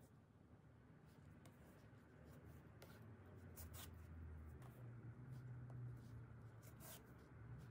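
Faint, scratchy rustles of wool yarn being drawn through a rug's edge and a needle pushed through the binding during hand overcasting of the edge, over a low steady hum.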